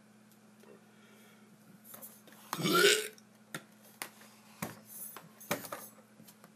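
A man's loud burp about two and a half seconds in, lasting about half a second, followed by a few short sharp clicks.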